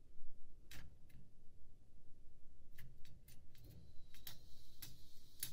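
Irregular sharp ticks and clicks, about a dozen, from a canary moving about its wire cage.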